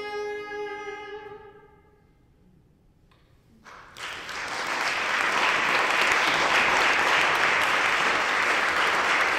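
The final chord of a soprano, baroque viola and harpsichord dies away in the hall, followed by about two seconds of silence. About four seconds in, the audience starts applauding, and the applause quickly grows and keeps going steadily.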